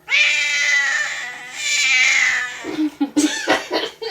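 Domestic cat yowling: two long, loud, drawn-out meows with a wavering pitch, followed by a few short, sharp sounds near the end.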